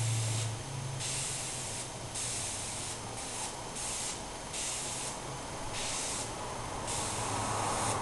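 Airbrush spraying in a run of short hissing bursts, about eight in all, each lasting under a second with brief pauses between.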